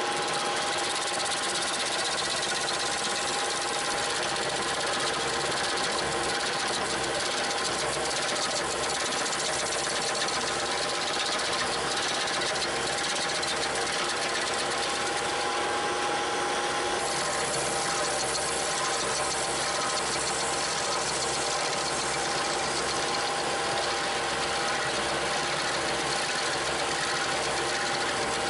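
Bobcat T300 compact track loader's diesel engine running at a steady speed, with a steady whine over it.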